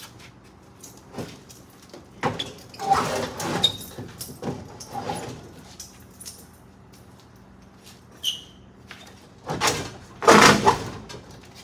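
Dixie Narco drink vending machine being walked across a concrete floor on its corners, its base scraping and grinding in several rough bursts, the loudest near the end, with a brief squeak just before it.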